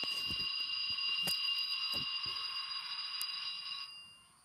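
A sound decoder in an N scale Broadway Limited AC6000CW plays its startup sequence through the model's tiny speaker: a steady, high, ringing alarm-like tone with scattered clicks, which cuts off about four seconds in.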